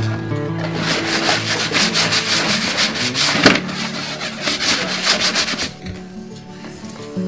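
Scouring sponge scrubbing a soapy plastic cutting board in rapid back-and-forth strokes, with one sharper knock about halfway. The scrubbing stops about six seconds in.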